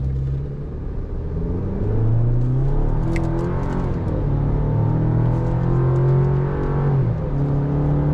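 2023 Chevrolet Colorado ZR2's turbocharged 2.7-litre four-cylinder engine accelerating hard from a standstill to highway speed, heard from inside the cab. The engine note climbs and drops back twice, about four and seven seconds in, as the automatic transmission upshifts.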